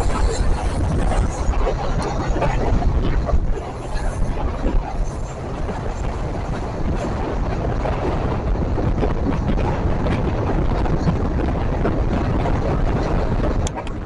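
Passenger train running, heard from on board: a steady rumble of wheels on the track, with wind buffeting the microphone. A short click near the end, after which it is a little quieter.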